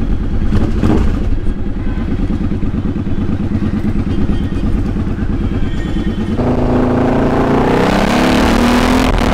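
Cruiser motorcycle engine running while riding through city traffic. About six seconds in the sound changes abruptly: the engine note rises as the bike picks up speed and wind rushes over the microphone.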